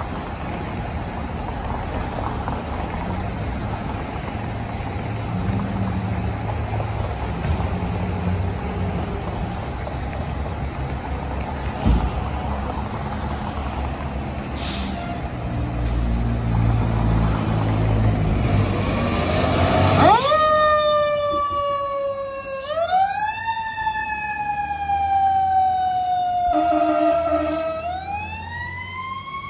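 Fire engine's diesel engine running and growing louder as the truck pulls out, with a brief hiss of air about halfway through. Some twenty seconds in, its siren starts: a loud wail that climbs and falls slowly, then climbs again.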